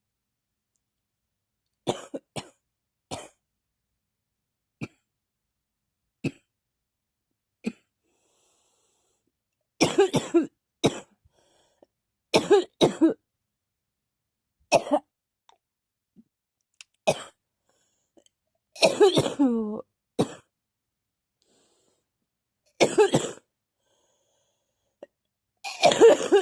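A person coughing repeatedly, with silence between the coughs. There are a few light single coughs in the first several seconds, then louder fits of two or three coughs every two to three seconds, some of them voiced.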